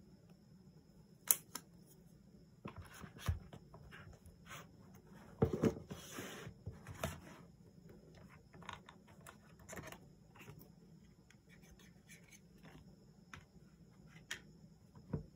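Quiet handling of a phone and its cardboard packaging on a wooden table: scattered taps, knocks and short scrapes and rustles as box parts are moved and set down. The loudest are a sharp tap about a second in, a cluster of knocks and a scrape around five to seven seconds in, and a knock just before the end.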